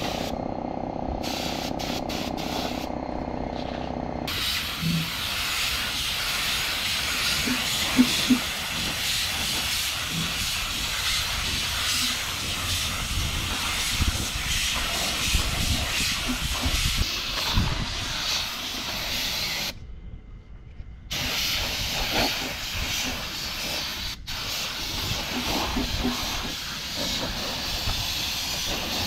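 Compressed-air paint spray gun with a gravity-feed cup spraying paint: a steady hiss of air and atomised paint. The trigger is let off briefly a few times in the first seconds and for about a second near twenty seconds in. A low steady hum runs under the first few seconds.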